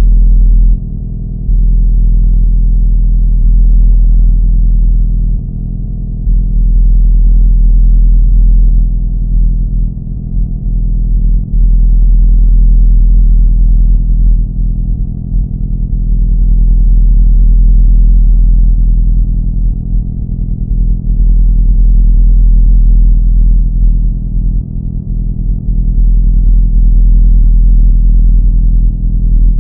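A loud, deep, steady drone with a heavy rumbling bass and a muffled sound, wavering a little in level every few seconds.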